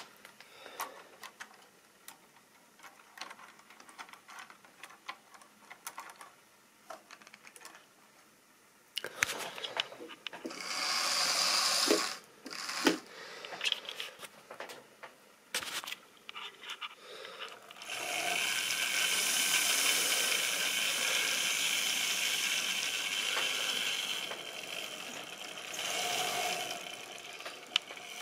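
Model train running on OO-gauge track: the small electric motor whirs and the wheels click over the rail joints. At first there are only sparse quiet clicks. Louder stretches of steady motor and wheel noise come about a third of the way in and again through most of the last third.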